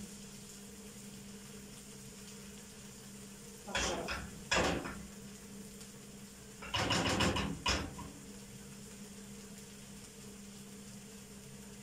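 Garlic and ground coriander frying in butter and oil in a non-stick frying pan, with a silicone spatula stirring and scraping the pan in short bursts about four and seven seconds in, over a faint steady sizzle and a low hum.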